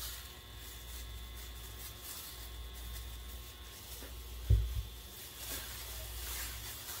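Steady low hum with one dull low thump about four and a half seconds in; near the end, faint rustling of plastic-gloved hands as they start tossing a chopped tomato, parsley and onion salad.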